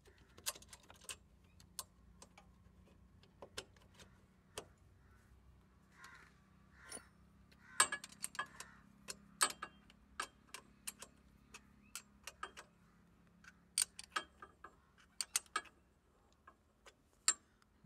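Small ratchet wrench clicking in short irregular runs, with light metal taps, as the mounting bolt of an air horn compressor is tightened onto a motorcycle bracket. The clicks are faint and thickest about eight and fourteen seconds in.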